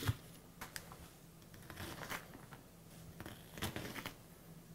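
Chef's knife mincing onion on a thin plastic cutting mat laid over a towel: a string of irregular chopping strokes, with a quick cluster of them near the end.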